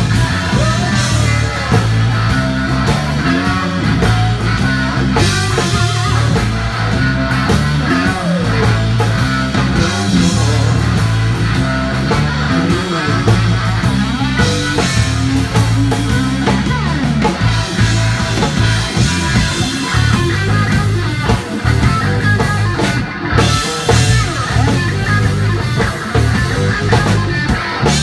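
Live blues-rock band playing an instrumental passage: electric guitar over bass guitar and a drum kit, at a steady beat.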